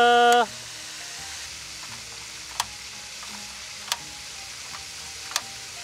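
The end of a shouted "Fire!", then three sharp clicks about a second and a half apart over a steady hiss: the igniter of an Iwatani Aburiya butane grill being worked without the burner lighting, which the user takes for a broken grill.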